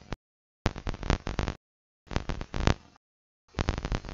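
A faulty computer recording: clicking, crackling handling noise, with the sound cutting out completely about three times, leaving bursts of about a second.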